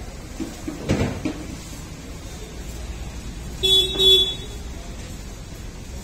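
A vehicle horn honks twice in quick succession, about two-thirds of the way in, on one steady pitch. A dull knock comes about a second in.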